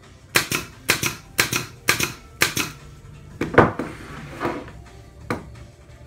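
Pneumatic micro-pin nailer firing five 30 mm pins into 14 mm plywood, about two shots a second, each a quick double snap. It is followed by a louder knock and two lighter knocks as the nailer and the plywood frame are handled on the workbench.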